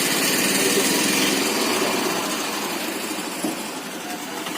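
A small engine running with a fast, even pulse, getting quieter after about two seconds.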